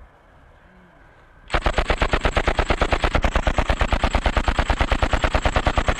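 Belt-fed machine gun firing one long continuous burst of about ten shots a second, starting about a second and a half in.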